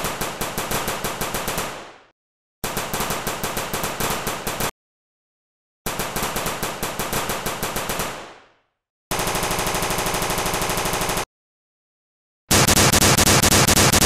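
Automatic gunfire sound effect: five bursts of rapid machine-gun fire, each about two seconds long, separated by dead silence. The fourth burst fires faster and more evenly, and the last burst is the loudest.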